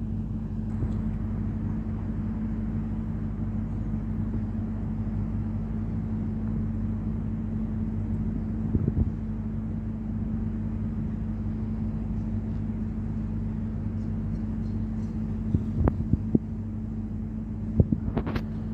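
A flying drone humming steadily on one pitch. A few short knocks come over it about nine seconds in and near the end.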